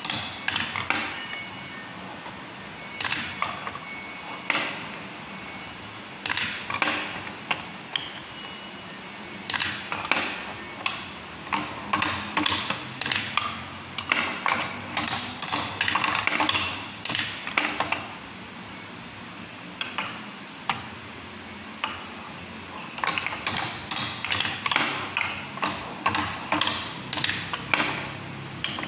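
Marbles clattering through a balsa-wood marble run: irregular clicks, knocks and short rolling rattles as they drop into the pockets of a hand-turned half wheel and run along the wooden runways, with a few quieter pauses in between.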